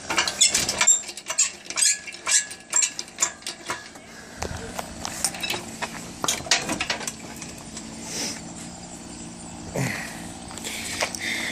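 Metal clinking and rattling: a quick run of clicks for about the first four seconds, then scattered clinks. A few short high chirps come near the end.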